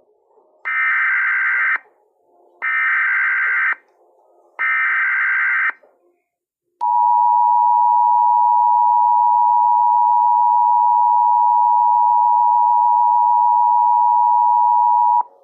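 Emergency Alert System tones: three one-second bursts of SAME digital header data, a harsh warbling screech, then the steady two-tone attention signal held for about eight seconds before it cuts off abruptly. They open a National Weather Service tornado warning.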